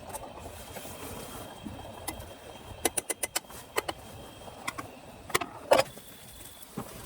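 Sharp clicks and knocks of hard objects being handled: a quick run of about five about three seconds in, then scattered single knocks, the loudest near the end.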